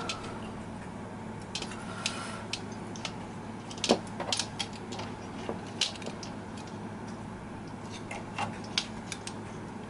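Scattered light metallic clicks and clinks of small metal tools and weights being handled against the needle bed of a Silver Reed mid-gauge knitting machine, the loudest about four seconds in. A low steady hum runs underneath.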